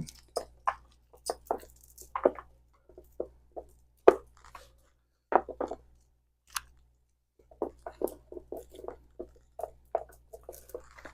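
A long necklace being handled and looped: beads and chain clicking and rattling in a scatter of small, sharp taps, with a quick busy run of them about three-quarters of the way through.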